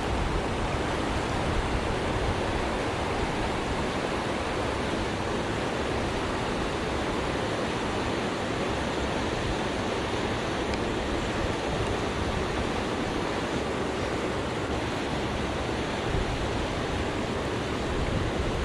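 River water rushing steadily, a constant even hiss of flowing current.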